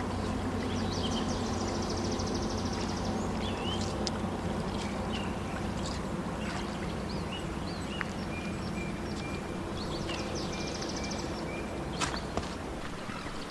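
Birds chirping, with two fast trills, over a steady low hum and background noise; a few sharp clicks near the end.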